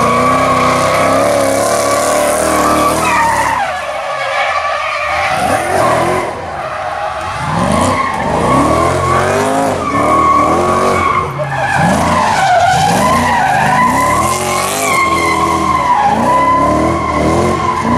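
LS2 V8 engine of a BMW E46 M3 drift car revving hard, its pitch rising and falling over and over as the car drifts, with a steady tyre squeal from the sliding rear tyres. The engine note drops away briefly about four seconds in.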